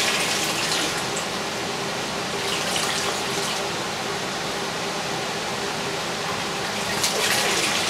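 Water pouring and splashing back into a plastic tub as a handful of soaked stone wool grow medium is squeezed out and worked by hand, with heavier pours near the start, about three seconds in, and near the end.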